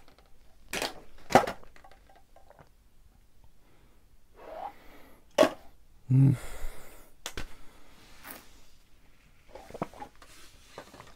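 Fast drinking from small plastic bottles of a Yakult-style probiotic drink: gulping, with sharp clicks and knocks of the plastic bottles. About six seconds in comes a short grunt followed by heavy breathing as the drinking stops.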